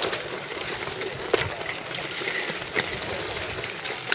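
Long-distance ice skates scraping and gliding on clear natural ice, with pole tips clicking against it, over a steady hiss. A sharp click stands out about a second in and another near the three-second mark.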